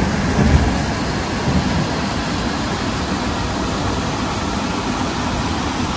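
Floodwater rushing steadily down a swollen river channel, a continuous even noise.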